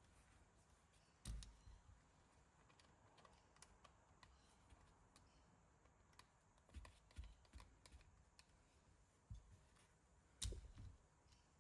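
Faint clicks and light knocks of RC model chassis parts being handled and set down on a work mat, with two louder thumps, one about a second in and one near the end.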